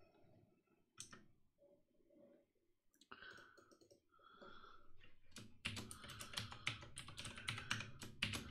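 A single click about a second in, then from about halfway a quick run of keystrokes on a computer keyboard.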